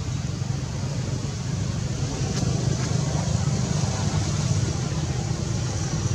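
Steady low rumbling background noise, with one faint click about two and a half seconds in.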